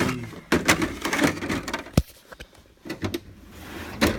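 Metal hand tools clattering and knocking as they are handled and put back in a tool box drawer: a run of sharp clicks and knocks, the sharpest about two seconds in.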